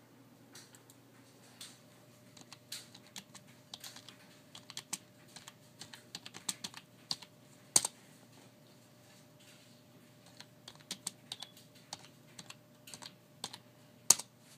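Typing on a computer keyboard: irregular runs of key clicks, with two louder strikes about eight seconds in and near the end, over a faint steady hum.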